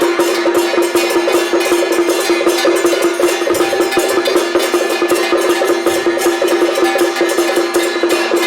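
Temple procession percussion music: fast, dense strikes over a steady held tone.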